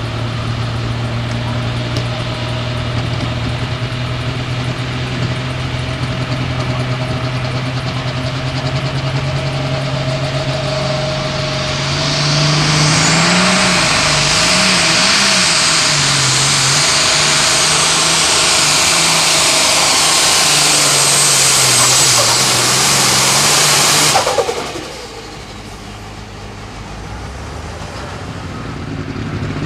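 An Allis-Chalmers Heavy Super Stock pulling tractor's turbocharged diesel engine holds a steady note at the line. About twelve seconds in it is throttled up for the pull, running at full power with a strong high hiss and its pitch wavering. Near the end it cuts off suddenly and drops back to a low idle.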